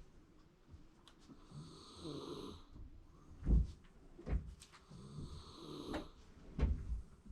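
Sleeping Shiba Inu snoring: two long snoring breaths about three and a half seconds apart, with a few sharp low thumps between them.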